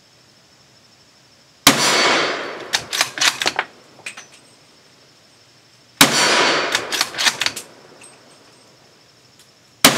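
Ruger American Ranch bolt-action rifle in 300 AAC Blackout fired unsuppressed with 220-grain subsonic rounds: three shots about four seconds apart, each report trailing off quickly. After each of the first two comes a quick run of metallic clacks as the bolt is worked to chamber the next round. The third shot falls at the very end.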